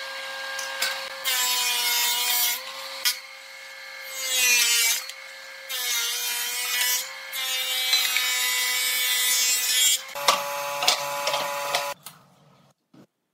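Thickness planer of a combination woodworking machine running with a steady motor hum while wooden boards are fed through in several passes, each pass a loud burst of planing noise from the cutterhead, with the hum dipping slightly in pitch under load. The sound cuts off abruptly about twelve seconds in.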